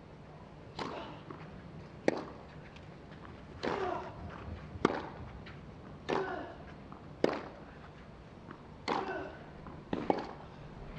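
A tennis rally on a clay court: a serve followed by ball-on-racket strikes back and forth, about one every second and a half. Every other hit comes with a short falling grunt, and the hits in between are clean, sharp pops.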